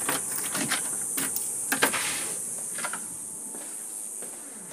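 A few sharp clicks and knocks of a door being opened and gone through, mixed with handling noise on the tablet's microphone; the loudest knock comes a little under two seconds in.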